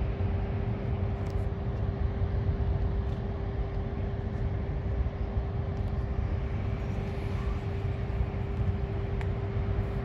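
Steady low outdoor rumble and noise with a constant droning hum; no blast or collapse impacts are heard.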